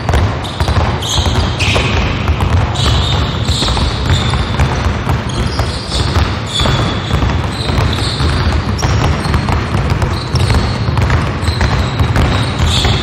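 Several basketballs dribbled at once on a hardwood gym floor: a dense, continuous patter of overlapping bounces, with short high sneaker squeaks scattered through it.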